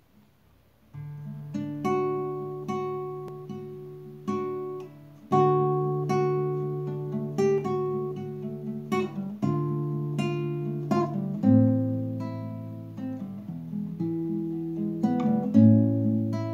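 Nylon-string classical guitar played solo, a run of plucked chords starting about a second in: the instrumental introduction before the singing.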